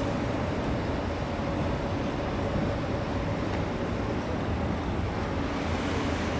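Steady mechanical hum of running engines: a low rumble with a faint steady tone above it, unbroken throughout.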